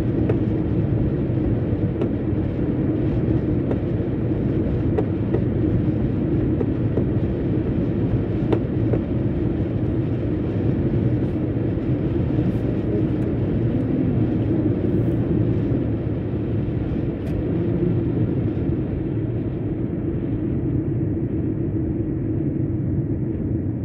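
Steady road and tyre noise of a moving car, heard from inside the cabin: a constant low rumble.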